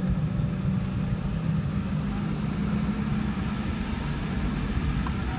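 Cabin noise inside a Boeing 717 taxiing at low thrust: a steady low rumble from its rear-mounted turbofans and rolling gear, with no rise in engine power.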